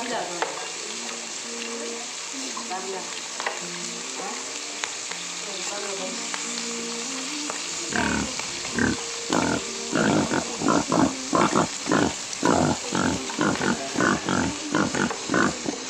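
Crunchy chewing close to the microphone. From about eight seconds in, a fast run of loud bites, about two to three a second, comes from a person eating shell-on cooked shrimp.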